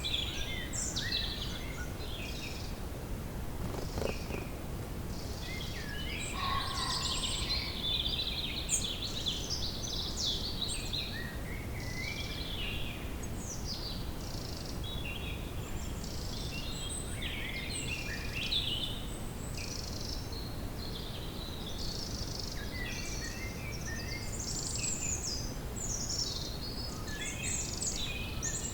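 Woodland ambience: several songbirds singing and calling in quick, overlapping chirps and trills over a steady low rumble.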